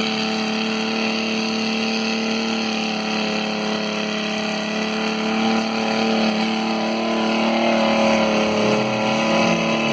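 Off-road vehicle's engine held at steady high revs as the vehicle strains and fails to pull itself out of the spot where it is stuck.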